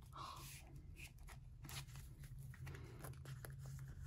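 Faint rustling and light ticks of photocards being handled and slid into binder pages, over a low steady hum.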